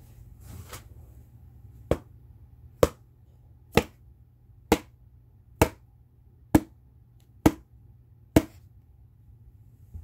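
A brief soft swish, then eight sharp, short impact sounds at an even pace, a little under a second apart.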